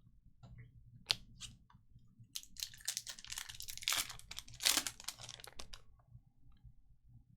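A trading card pack wrapper crinkling and tearing as it is opened by hand: a run of crackling rustles from about one to six seconds in, loudest a little past the middle.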